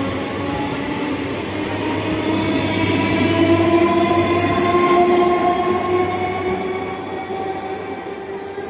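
An electric multiple-unit local train runs past and pulls away under power, its motor tones slowly rising in pitch over the rumble of wheels on rail. It is loudest about halfway through, then fades a little as it moves off.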